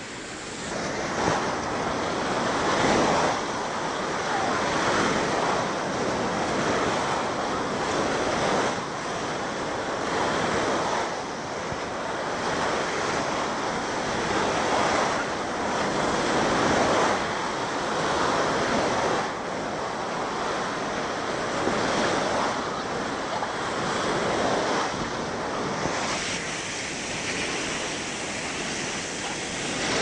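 Small sea waves breaking and washing up a sandy beach, the surf rising and falling every couple of seconds. Wind buffets the microphone.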